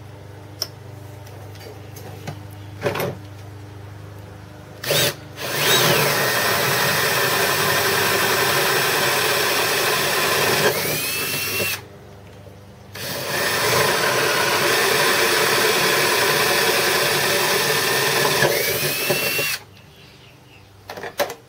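Electric drill boring out holes in the metal base to 6 mm, run twice for about six seconds each; the pitch drops as the bit starts cutting and rises again just before each run stops. A few light knocks from handling the work come before the first run.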